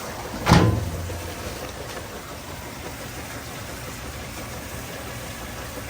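GE top-load washer filling with water during its diagnostic pressure-sensor test: a steady rush of incoming water with a low hum. A sharp knock sounds about half a second in.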